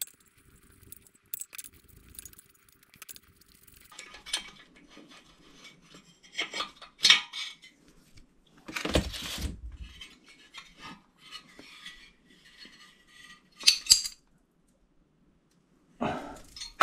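Metal tools and small engine parts clinking and clattering as a motorcycle engine is taken apart, with a heavier clank about nine seconds in and sharp clinks around fourteen seconds.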